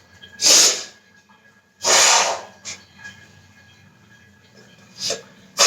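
Forceful blasts of air out through the nose, several short sharp rushes a second or more apart, clearing leftover rinse water from the nasal passages after a jal neti nasal rinse.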